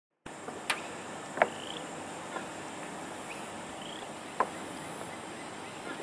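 After a moment of silence, a steady high insect hum comes in, with a few short, faint rising bird chirps and three sharp taps.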